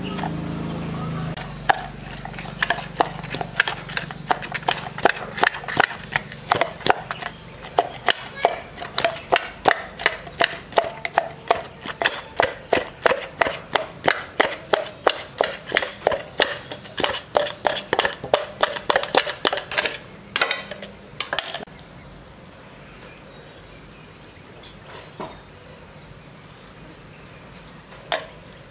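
A steady run of sharp knocks, about two to three a second, that stops about 21 seconds in, followed by a couple of single knocks near the end.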